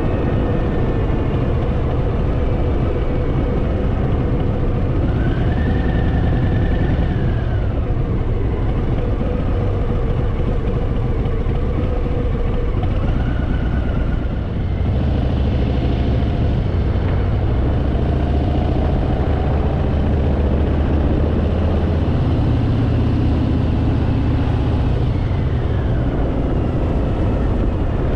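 Harley-Davidson Fat Boy's V-twin engine running while riding, its note rising and falling with the throttle, with a brief drop in level about halfway through.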